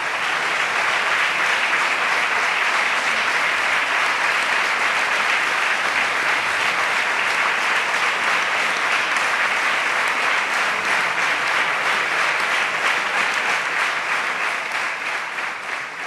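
Standing ovation: a large chamber full of people clapping steadily.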